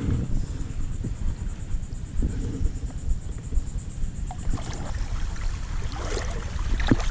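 Wind buffeting the microphone: an uneven low rumble that rises and falls in gusts, with a few faint clicks in the second half.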